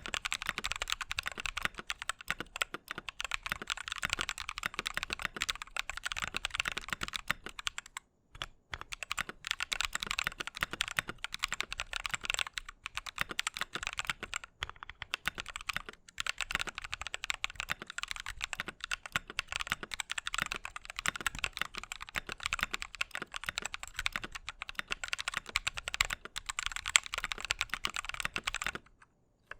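Fast continuous typing on a mechanical keyboard with Drop Holy Panda v2 tactile switches in an aluminium plate, a steady stream of keystroke clacks with a brief pause about eight seconds in. The typing stops abruptly near the end.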